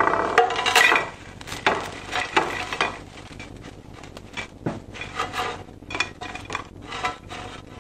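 Freshly cooked potato fries tipped out of an Arzum air fryer's perforated basket onto a plate: a loud rattling slide of chips in the first second, then a run of small clicks, taps and scrapes as the last fries are shaken out.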